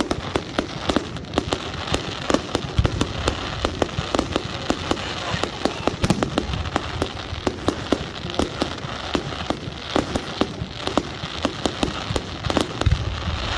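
Fireworks display going off: a dense run of rapid crackles and sharp bangs, with deeper booms about three seconds in, about six seconds in, and near the end.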